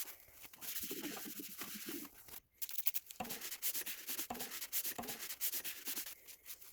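Scrubbing and rubbing on a 3D printer while it is cleaned with alcohol: a rough rubbing noise in quick repeated strokes, with a brief pause about two and a half seconds in.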